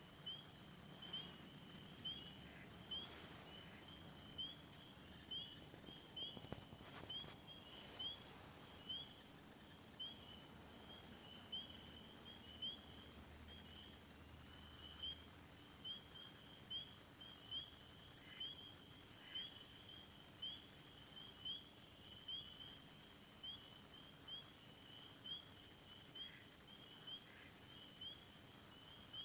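Faint repeated chirping from a small animal: one short, rising high call about once a second, kept up steadily. A few soft clicks come in the first eight seconds.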